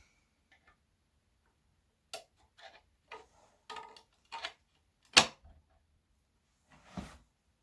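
Small flathead screwdriver prying at the clips of a speaker's grille cover: scattered clicks and scrapes, with one sharp, loud click about five seconds in.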